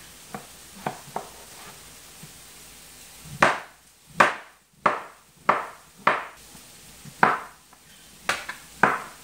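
Chef's knife cutting zucchini on a plastic cutting board: a few light cuts, then from about three seconds in a run of about eight firm chops striking the board.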